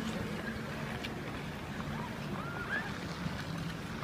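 Steady road traffic noise from the city street, a continuous rumble with a few faint short sounds rising and falling in pitch past the middle.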